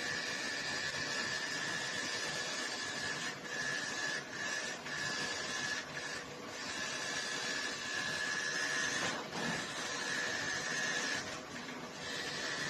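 Washing machine running, with a steady motor whine over an even hiss. The whine breaks off briefly several times.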